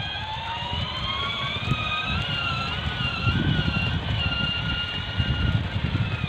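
Wind buffeting the microphone in gusts, with a high-pitched whine that rises in pitch over the first couple of seconds and then holds, wavering slightly.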